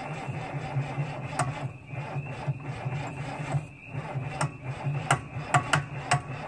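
Electric starter cranking a Farmall 706's D310 diesel engine, a rhythmic chugging of compression strokes that dips twice, with several sharp clicks in the second half. The injection lines are cracked open and it is being cranked to bleed air from the fuel system.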